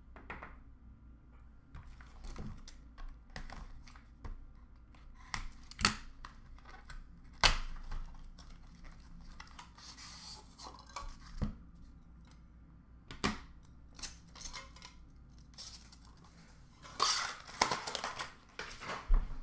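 Trading cards and their packaging being handled on a glass counter: scattered sharp taps and clicks as cards are set down, and rustling and tearing of the pack wrapper, with a longer burst of rustling near the end.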